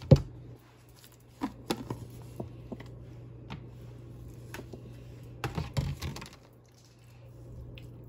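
Kitchen handling sounds as butter mixture is scraped from a bowl by hand and rubbed onto a raw turkey in a foil roasting pan: scattered clicks and knocks, the loudest a sharp knock at the very start, with small clusters around two seconds in and again near six seconds. A steady low hum runs underneath.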